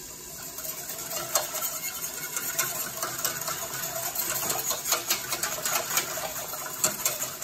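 Wire whisk clicking and scraping rapidly against the sides and bottom of a stainless steel saucepan, beating tomato paste into stock. It starts just after the beginning and keeps up a fast, uneven clatter.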